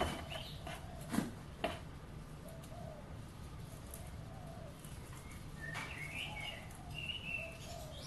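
Two sharp metal clinks a little over a second in, as pliers grip a tin-can crucible and lift it out of the furnace, with birds calling faintly around them.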